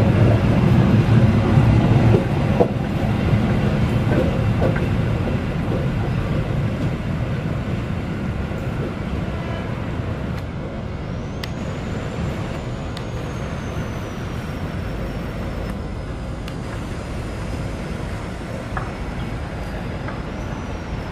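Passenger train carriages rolling past over the rails and pulling away. The rumble is loud for the first couple of seconds, then eases to a steadier, quieter rumble as the train recedes. A faint high whine glides along in the second half.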